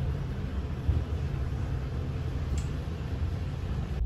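Elevator car's steady low hum with a light hiss.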